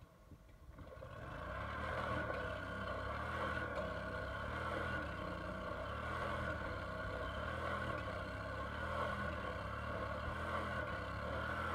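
Outboard mud motor on a jon boat running hard under load as the boat is forced through shallow mud. The engine rises over the first second or two, then runs steadily, its low drone pulsing slightly.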